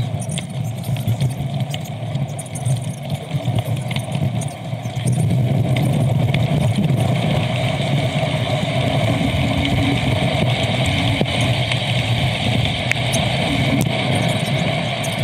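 Road noise from riding a bicycle in motor traffic: vehicles running past and wind on the microphone, growing louder about five seconds in and staying loud.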